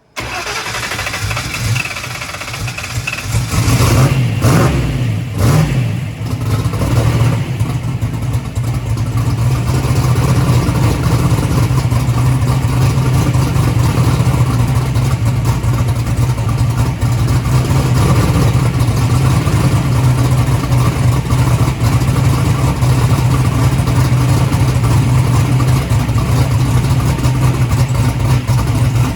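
Big turbocharged drag-car engine with a 118 mm turbo, revved in a few sharp blips about four to seven seconds in, then running steadily at a held speed while the turbo is brought up to boost.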